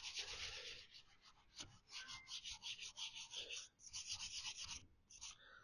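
Hand sanding of the primed steel body panel of a VW T25 van with a 600-grit pad: quick back-and-forth rubbing strokes, a dry hiss, with short pauses about a second in and near the end. The pad is clogging up with primer.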